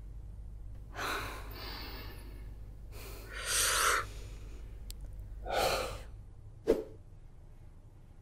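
A person sighing and breathing heavily in frustration: three long breaths a second or two apart, the loudest about three seconds in, then a short sharp sound near the end.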